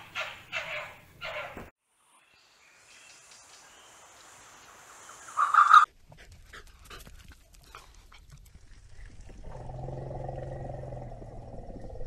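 Several animal calls in turn: three short yelping calls at the start, a loud brief cry around five seconds in, and a long low call with a steady pitch near the end.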